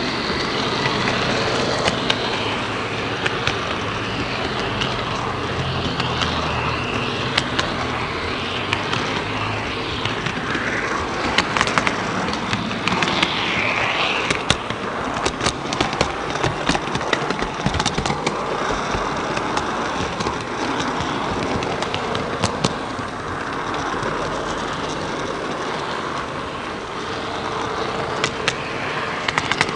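16-gauge (1:80 scale) model train running along its track, heard from a camera riding on the train: a steady rolling rumble of wheels on rail, with frequent sharp clicks from rail joints and points.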